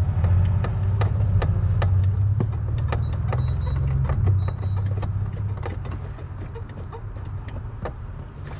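Light clicks and knocks of a part being worked loose by hand from behind a car dashboard, over a low rumble that fades over the second half.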